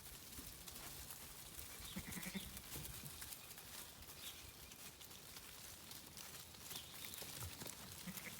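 Sheep and lambs bleating faintly a few times, with scattered clicks and knocks.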